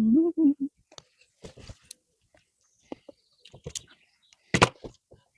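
Plastic Lego pieces being handled and snapped together: scattered small clicks and rustles, with one sharp, louder click about four and a half seconds in. A person hums briefly at the very start.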